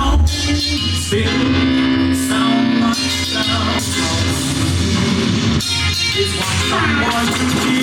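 A song with singing and heavy bass playing loudly through a sound system.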